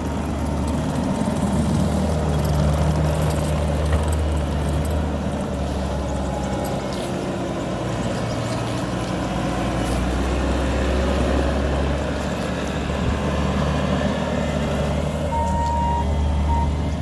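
Bobcat T650 compact track loader's four-cylinder diesel engine running under working load, its note shifting up and down a few times. A brief beep sounds near the end.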